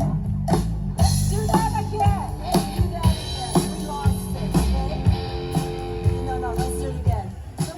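Live rock band playing: drums keeping a steady beat under bass, electric guitar and singing.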